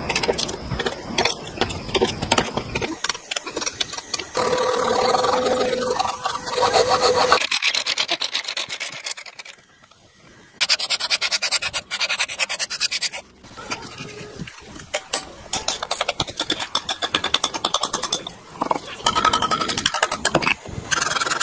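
Woodworking tools on a wooden block: fast, repeated scraping and rubbing strokes of wood being worked. The sound drops almost to silence for about a second near the middle, then resumes.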